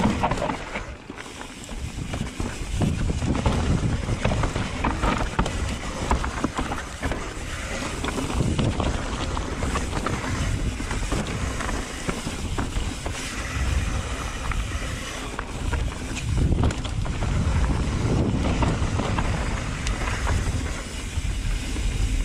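Mountain bike descending a dirt forest trail at speed: wind rushing over the microphone, the tyres rolling over dirt and rocks, and many short knocks as the bike jolts over bumps. The noise dips briefly about a second in.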